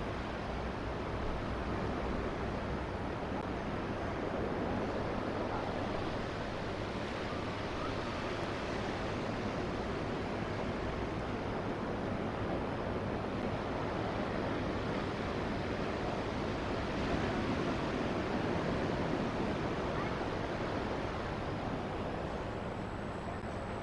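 Steady rushing of ocean surf breaking on a pebble beach, mixed with wind.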